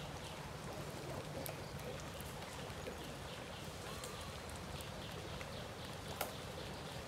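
Light rain: a steady hiss with scattered faint drop ticks, and one sharper tick about six seconds in.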